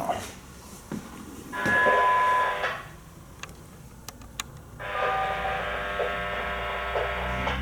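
Locomotive air horn blowing a chord of several steady tones: a short blast about two seconds in, then a longer one held from about five seconds in.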